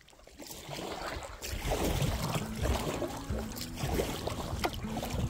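Canoe being paddled: water splashing and dripping off the paddle, with wind on the microphone. Low background music comes in about a second and a half in.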